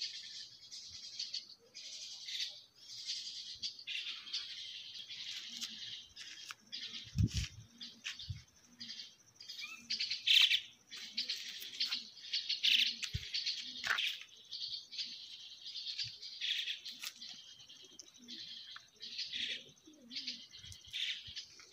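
Small birds chirping busily, many short overlapping calls. A few dull low bumps come about seven and thirteen seconds in.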